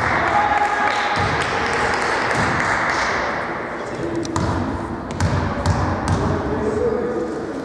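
Sports-hall ambience at a basketball game: a steady hubbub of many voices, with a few sharp knocks of a basketball bouncing on the court.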